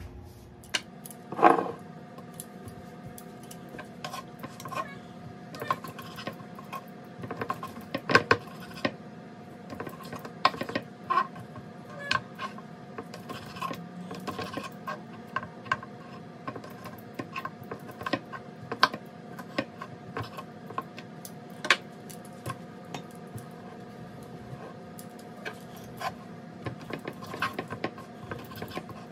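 Knife cutting cooked lamb chops on a wooden cutting board while metal tongs click and lift the pieces into a glass bowl: irregular knocks and taps throughout, over a faint steady hum.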